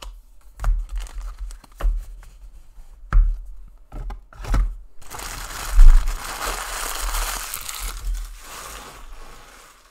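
Trading cards handled and set down on a table with a few soft knocks, then a card pack's wrapper torn open and crinkled for about four seconds, starting about five seconds in.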